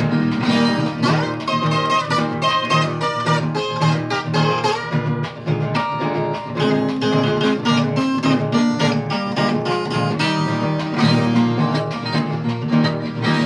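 Viola caipira, the Brazilian ten-string guitar, playing a fast instrumental passage of quick, rhythmic picked and strummed notes.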